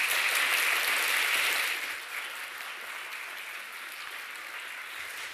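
Audience applauding, loudest for the first couple of seconds and then settling into softer, steady clapping.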